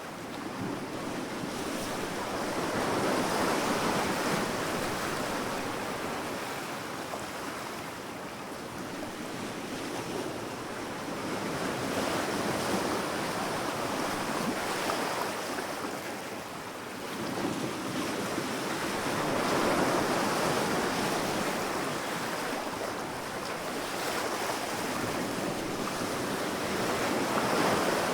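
Sea waves breaking and washing up on a sandy beach, a continuous rush that swells and fades every several seconds.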